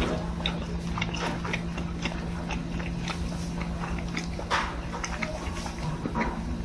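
Close-miked chewing of a slice of boiled pork (suyuk): irregular wet mouth clicks and smacks, with one louder smack about four and a half seconds in.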